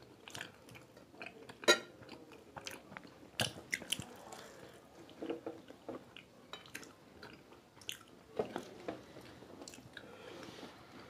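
People chewing and biting crisp fried samosas, with scattered crunches and wet mouth sounds. There is a single sharp click a little under two seconds in.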